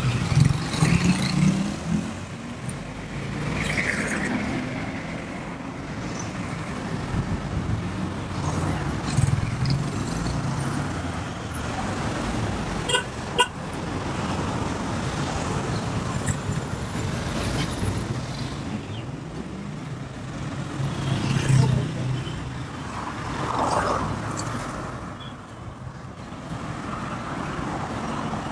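City road traffic: cars and other vehicles running past, with a few short car-horn toots. There is a sharp double click about thirteen seconds in.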